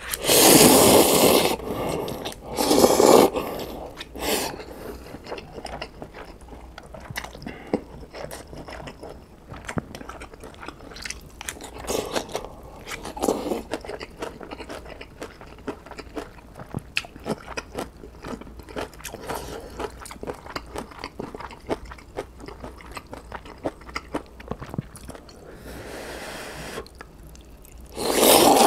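Close-miked mukbang eating: loud slurps of instant ramen noodles at the start, again about three seconds in, and near the end. In between come wet chewing and many small crunching clicks from a full mouth.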